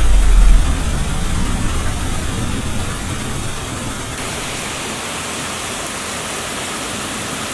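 Heavy rain pouring steadily. A low rumble of thunder is loudest at the very start and dies away over the first three seconds.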